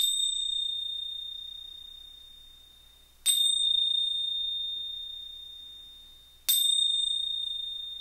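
Small handheld chime struck three times, about three seconds apart, each giving one clear high ring that fades slowly. It marks a pause for silent reflection during prayer.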